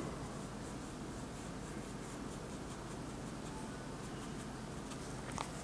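Faint scratching of a thin brush laying oil paint onto the painting surface, over a steady low hiss, with a couple of light taps near the end.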